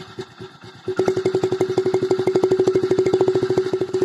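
Small single-cylinder motorcycle idling, with a small plastic bottle tied at the silencer mouth in the exhaust stream. About a second in, once the bottle sits at the right angle, it starts buzzing with a steady tone over the rapid, even exhaust pulses, the home-made "KTM" exhaust note.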